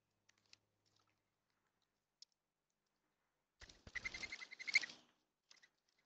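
Mourning dove wings whistling and flapping in a quick burst of about a second and a half, a little past halfway, as a dove takes off or lands at the feeder. A few faint clicks come before it.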